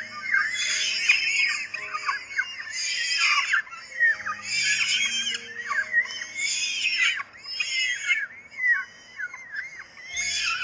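Baby birds in a nest calling shrilly and continuously: many rapid, overlapping high chirps that swoop up and down in pitch, typical of nestlings begging for food. Soft background music with low held notes runs underneath.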